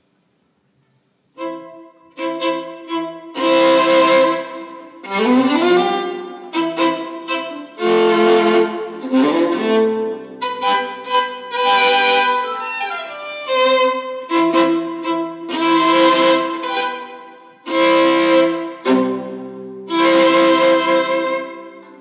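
Solo violin playing a melody of long held notes, with a few sliding notes in the middle; it comes in about a second and a half in and dies away near the end.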